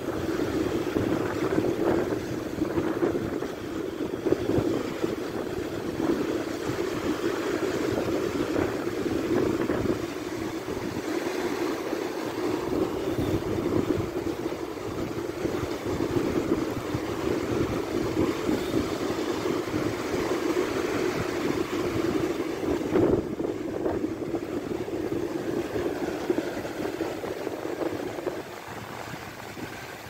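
Sea waves washing up on a sandy beach: a steady rush of surf, a little quieter near the end.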